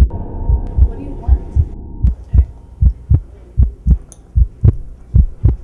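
Heartbeat sound effect: paired low thumps, about 80 beats a minute, over a low steady hum that fades out about two seconds in.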